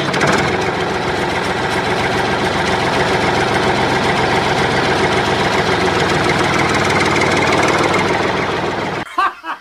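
Small engine running steadily at a constant speed, cutting off abruptly about nine seconds in.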